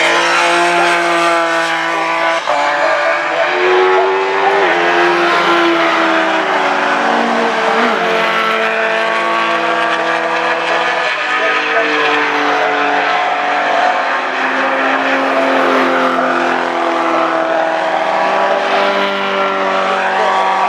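Several racing car engines running hard at once, their pitches stepping up and down again and again as the cars change gear and brake and accelerate through the corners.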